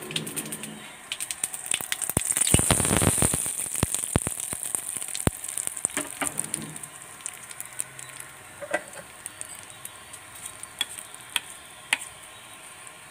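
A tempering of mustard seeds, cumin and curry leaves in hot coconut oil, sizzling with a hiss and quick crackling pops. The crackling is heaviest in the first few seconds, then dies down to occasional single pops.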